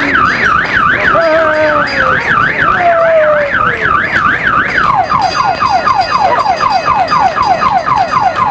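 Electronic multi-tone siren of the car-alarm kind: a fast up-and-down warbling wail, switching about five seconds in to a run of quick falling sweeps, about three or four a second.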